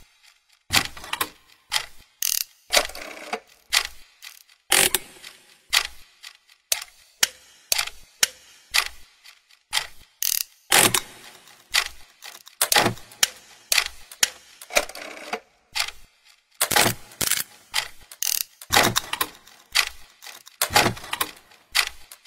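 Rhythmic clicking and clacking of a clockwork gear and ratchet mechanism, a louder clack about every second or two with lighter ticks between, some ringing briefly.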